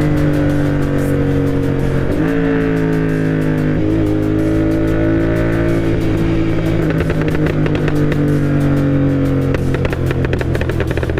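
Tuned Royal Enfield GT 650 parallel-twin engine running through a Moto Torque aftermarket exhaust. Its revs sink slowly and jump back up several times, and there are rapid exhaust crackles about seven and ten seconds in.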